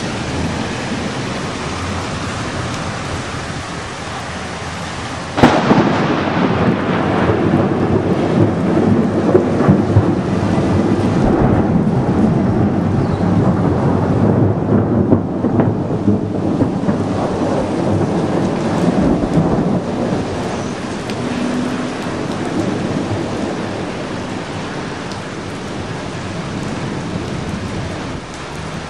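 Heavy rain falling steadily. About five seconds in, a sudden thunderclap breaks out into long rumbling thunder that slowly fades over some fifteen seconds.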